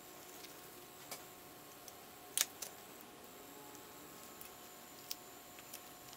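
Faint scattered clicks and taps of small black binocular rings being handled. The sharpest click comes about two and a half seconds in, with a few softer ticks around it.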